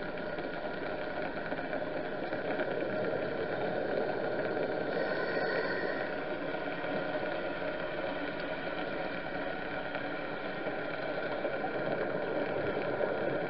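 Steady drone of a boat's engine and propeller carried through the water, heard underwater, with a brief hiss about five seconds in.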